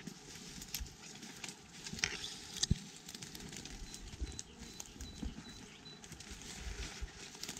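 Dry twigs, branches and leaf litter crackling and snapping as woodland debris is trodden on and handled, irregular clicks over rustling, with one sharper snap nearly three seconds in.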